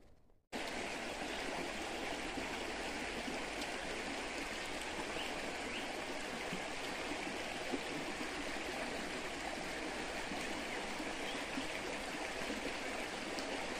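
River water flowing over rocks, a steady rushing sound that starts suddenly about half a second in.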